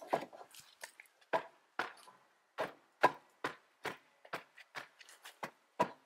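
A run of sharp, uneven knocks, roughly two a second, from hands working concrete blocks on a dry-stacked block wall, tapping and setting them into line.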